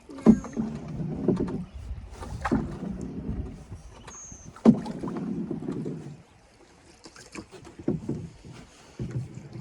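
Canoe being paddled: sharp knocks about every two seconds, each followed by the wash of the stroke, then quieter paddling with small clicks in the last few seconds.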